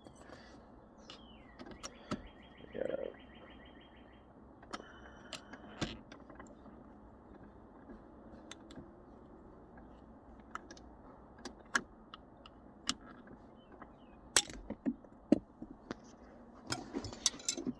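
Scattered faint clicks and taps of small plastic shifter-button parts being handled and pried apart, with a few sharper clicks near the end.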